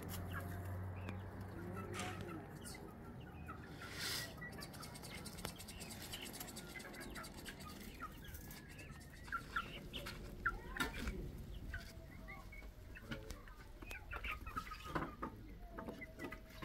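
Chickens clucking in short, scattered calls, busiest in the second half, with a few sharp knocks in between.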